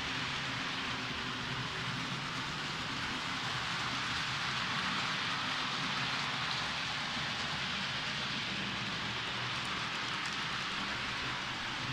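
H0-scale model trains running on the layout's track: a steady rushing hiss of wheels on rails and electric motors, with a faint hum underneath.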